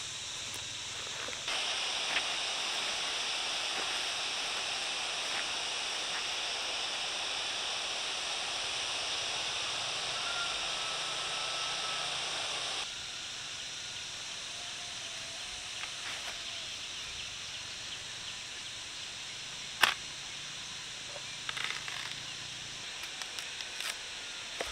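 Outdoor countryside ambience: a steady high hiss that steps up about a second and a half in and drops back about halfway through. A short whistle-like tone comes near the middle, and a single sharp click a few seconds before the end.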